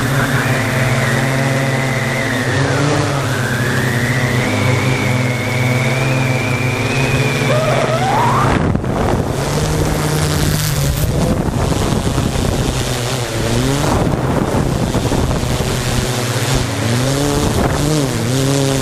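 Multirotor drone's electric motors and propellers buzzing with a steady whine and its harmonics. The pitch rises and falls several times as the motors change speed while it manoeuvres, with a rush of air noise underneath.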